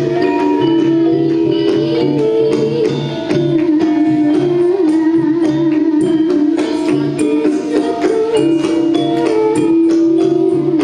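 Live campursari music from a Javanese gamelan ensemble, kendang drums and struck metallophones keeping a steady beat under sustained pitched lines.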